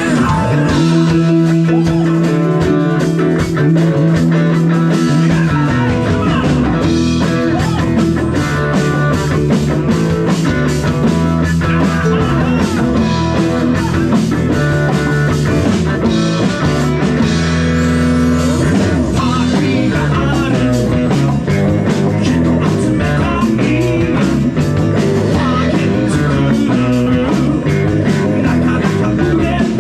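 Rock band playing live, guitar-led with drums, in an instrumental passage; bass and fuller low end come in about six seconds in.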